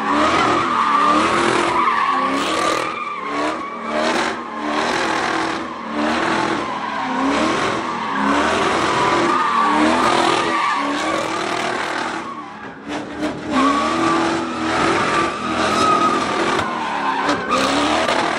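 A car doing donuts, its tyres squealing steadily and shrilly on the pavement while the engine revs up and down again and again, roughly once a second.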